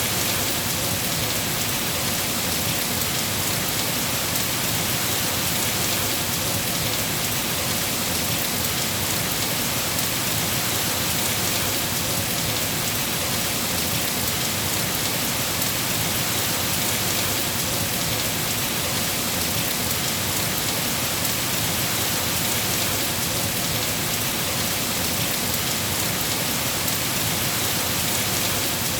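Steady rain falling, an even hiss that stays level throughout, with no thunder claps or separate drops standing out.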